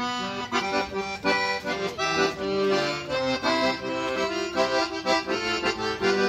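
Accordion playing a quick melodic instrumental passage of a gaúcho folk song, with no singing.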